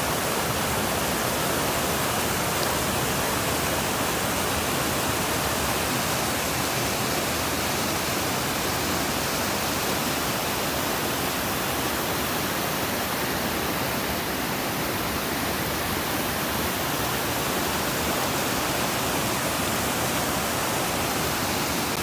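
Fast mountain stream rushing over rocks in small white-water cascades: a loud, steady, unbroken rush of water.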